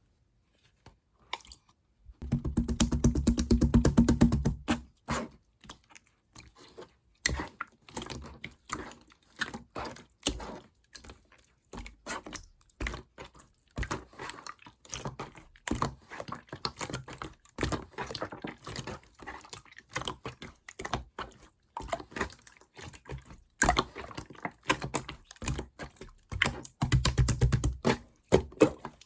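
Clear, colourless slime being pressed, stretched and poked by hand, making rapid sticky clicks and pops. There are louder, denser squishing spells about two seconds in and again near the end.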